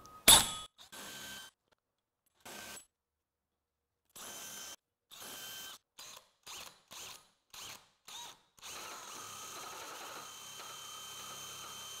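Cordless drill turning a hole saw into plywood: a sharp knock just after the start, then several short spurts of the motor and a quick run of brief trigger pulses, before it runs steadily from about nine seconds in.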